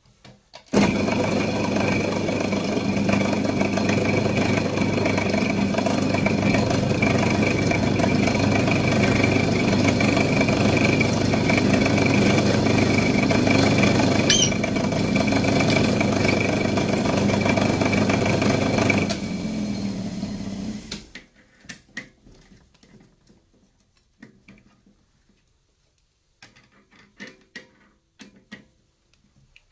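Pillar drill (drill press) motor starting and running steadily with a hum and whine while a twist drill bores into steel box section, with a brief high squeak about halfway. About two-thirds of the way in the motor is switched off and runs down over a couple of seconds, followed by faint clicks and taps of the chuck being handled as the bit is changed.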